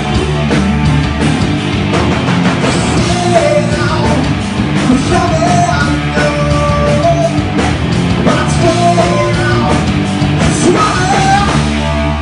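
Grunge band playing loudly live: distorted electric guitars and drums pounding.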